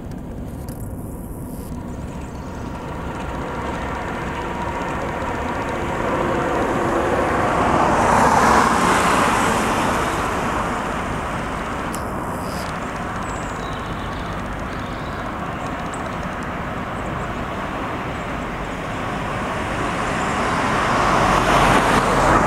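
Class 37 diesel locomotives with English Electric V12 engines hauling a test train past. The engine sound is steady, swelling about eight seconds in and again near the end as the locomotives at each end go by.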